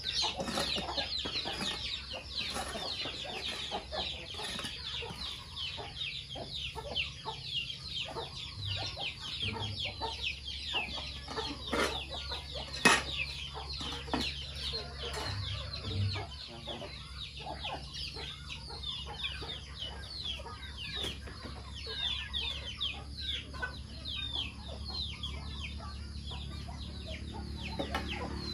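Chickens calling continuously, a dense stream of short, high calls that fall in pitch, with a single sharp knock about thirteen seconds in.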